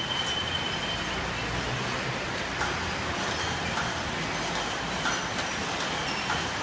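Steady machinery noise from a robotic crate-palletizing cell and its roller conveyors, with a low hum that comes and goes and a few light clicks as the gripper handles a layer of plastic crates.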